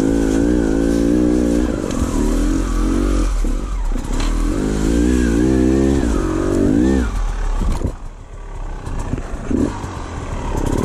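Enduro dirt bike engine revving hard in two long bursts, the pitch rising and falling as the throttle is worked on a steep climb. It drops back to a lower, quieter running about eight seconds in, then picks up again near the end.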